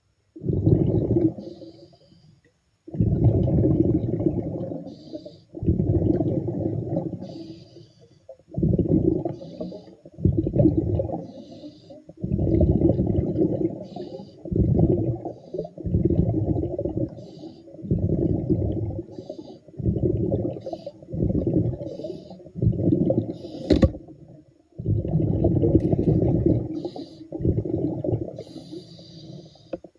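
A diver breathing underwater, each exhalation a bubbling rumble of air about every two seconds, with a short faint hiss between the bursts.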